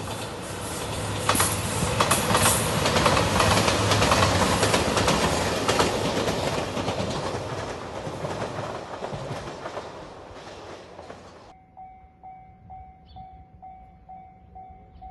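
JR Shikoku 2700 series diesel train passing close by: diesel engine hum and wheels clacking over rail joints, loudest a few seconds in and fading as it moves away. The sound cuts off abruptly about eleven seconds in, and a level-crossing warning bell rings in steady repeated dings.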